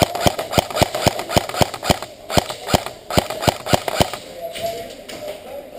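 Airsoft rifle firing a quick string of about fourteen shots, roughly three to four a second, which stops about four seconds in.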